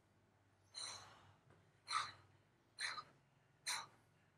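A woman's short, forceful breaths, four in a row a little under a second apart, during a breathwork trauma-release exercise.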